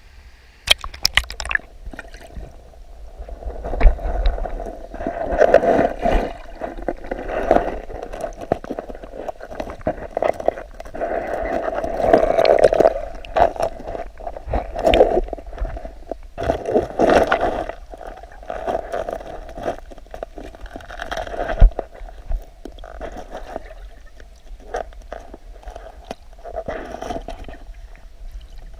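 Water splashing and gurgling close to the microphone in irregular surges, with scattered knocks and scrapes.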